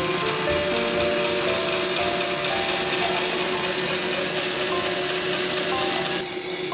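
Woodworking bandsaw ripping a pine board along the grain, the blade hissing steadily through the wood; the cutting noise drops away about six seconds in. Background music plays underneath.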